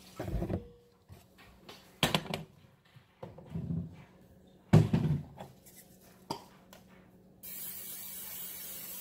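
Kitchen clunks and knocks as a glass mixing bowl goes down on a glass stovetop and a cupboard is worked, the loudest a little before five seconds in. Then, about seven seconds in, an aerosol can of cooking spray starts hissing steadily as it coats the bowl.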